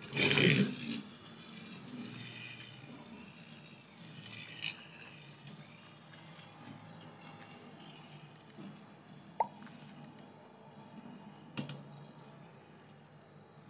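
A homemade ball-bearing metal beyblade launched from a ripcord launcher, landing on a steel plate with a loud rattle in the first second. It then spins on the plate with a faint steady rattle that slowly dies away, with a few light clicks later on.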